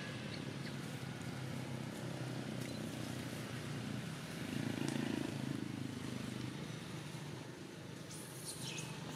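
Steady low outdoor background hum that swells briefly about halfway through, with a few faint high chirps and a short high call sliding downward near the end.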